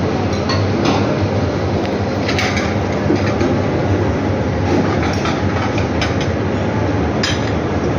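Steady, loud restaurant room noise, mostly a low hum, with a few sharp clinks of metal serving spoons against the buffet dishes, one about two seconds in and one near the end.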